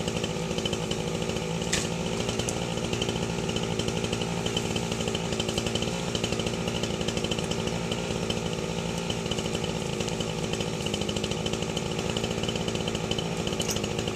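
Chainsaw engine running at a steady speed, with a couple of faint clicks about two seconds in.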